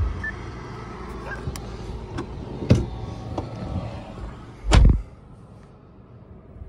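A few light clicks and knocks of handling in a car cabin, then a loud low thump about five seconds in as the driver's door of a 2023 Suzuki Vitara shuts, after which the outside noise drops away.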